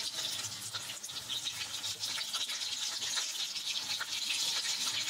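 Batter-coated chicken pieces deep-frying in hot oil: a steady sizzle full of fine crackles.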